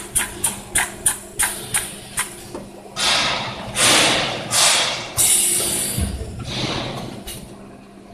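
Automatic pneumatic liquid pouch-packing machine cycling over a steady hum: a run of sharp clicks, about three a second, then several hissing bursts from about three seconds in, fading toward the end.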